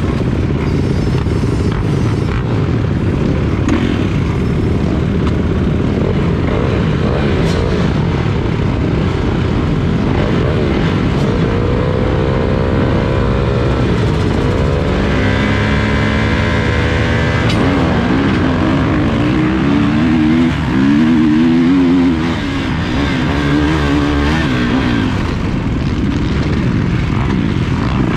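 A pack of motocross dirt bikes revving at the starting gate, engines rising in pitch as they hold the throttle. About two-thirds of the way through they launch, and the rider's own Kawasaki dirt bike accelerates hard, its pitch climbing and dropping as it shifts through the gears.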